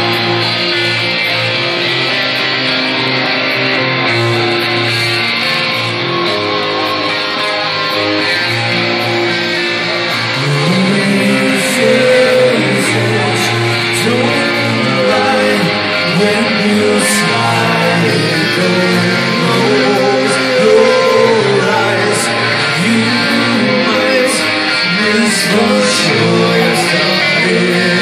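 Live rock band playing loud through a PA: electric guitars and drums with cymbal crashes. A male lead vocal comes in about ten seconds in.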